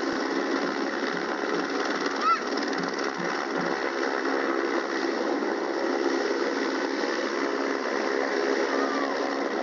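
Helicopter engine and rotor running with a steady mechanical hum after the crash. A short, high squawk comes about two seconds in.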